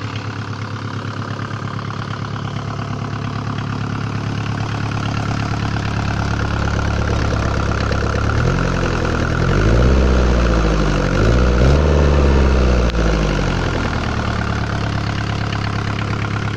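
Mercedes-Benz OM615 four-cylinder diesel idling, then revved twice about halfway through, each rev rising and falling, before settling back to a steady idle.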